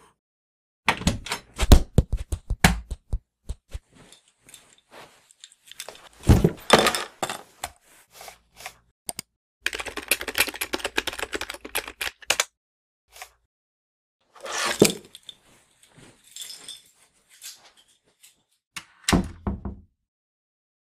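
Irregular knocks and thuds, many in quick succession near the start, with a few seconds of dense rough noise about ten seconds in and a last cluster of knocks near the end.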